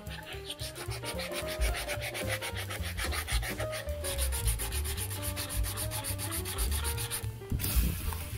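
Sandpaper rubbed quickly back and forth on the wooden skateboard deck, many even strokes a second. The strokes turn hissier about halfway through and stop shortly before the end.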